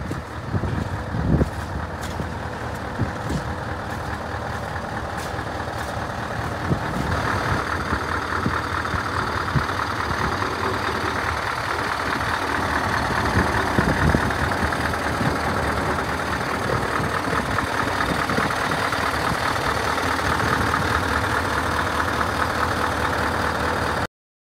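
Scania 143 500 truck's 14-litre V8 diesel idling steadily, louder from about seven seconds in. A few light knocks sound in the first seconds, and it all cuts off suddenly near the end.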